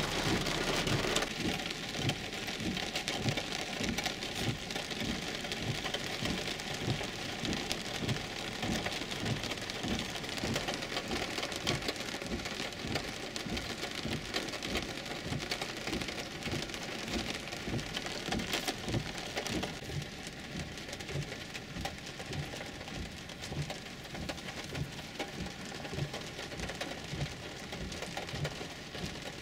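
Heavy rain beating on a 2011 Infiniti EX35's roof and windshield, heard from inside the cabin: a dense, steady hiss with many separate drops knocking. It is a little louder for the first second or so.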